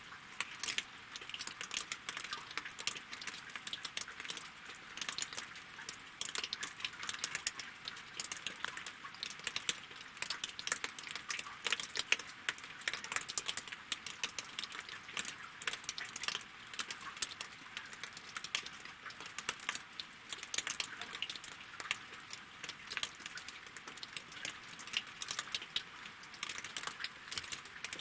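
Rain falling on lake water and wooden logs: a steady, dense patter of individual drops ticking and clicking.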